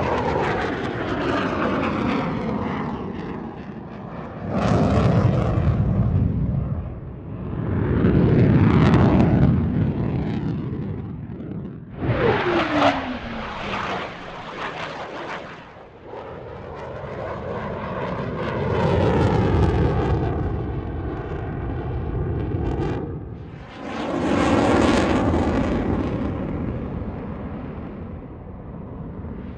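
A run of military fighter jet passes, one after another: F/A-18 Hornets and F-16C Fighting Falcons flying by. Each pass swells and fades, with a whistle that falls in pitch as a jet whips past, and a crackling engine surge on the curls and the dive.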